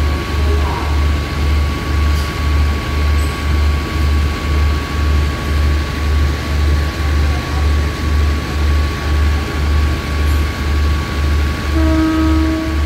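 Diesel train idling at the platform: a low rumble pulsing about twice a second under a steady high whine. Near the end comes a brief horn note.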